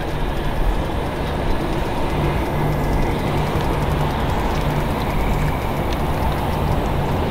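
Steady rumble of distant vehicles, with a low hum that comes and goes.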